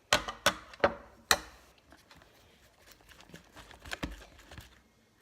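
Four sharp knocks or taps in the first second and a half, then fainter scattered handling noises.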